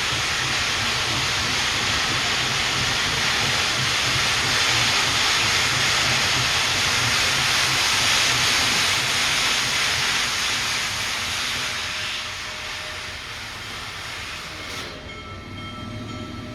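Train led by steam locomotive Big Boy 4014 going by, with diesel locomotives behind it: a loud steady hiss over a low rumble that eases off about twelve seconds in. Near the end the hiss drops away suddenly, leaving a faint steady horn chord.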